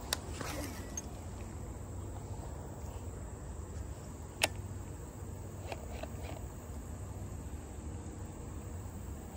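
Steady high drone of insects over a low rumble, broken by sharp clicks from a baitcasting reel: one right at the start as the cast is made, another about four and a half seconds in, and a few fainter clicks a second or so later as the line is reeled in.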